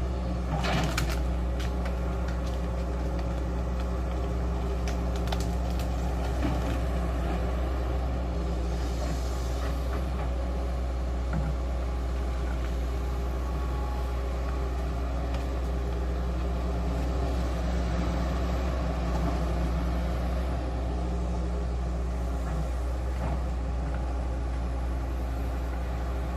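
Hydraulic excavator's diesel engine running steadily, with a few short knocks from the machine working.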